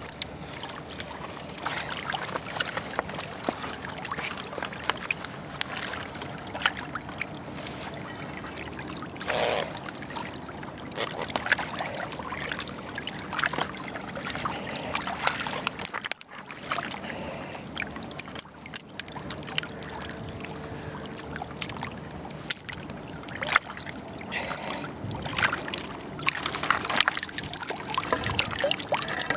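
Water sloshing and trickling around a camera held under the surface, with frequent small knocks and crackles.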